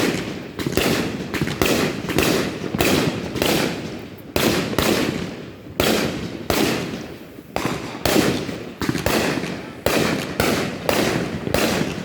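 Consumer fireworks going off in quick succession: a steady string of loud bangs, one or two a second, each trailing off in a rolling echo, with a couple of short lulls.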